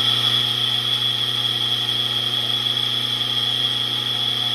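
ECM Synchronika espresso machine's rotary pump motor running steadily as it fills the steam boiler: a loud low hum under a high, steady whine, the noise of a bad motor bearing.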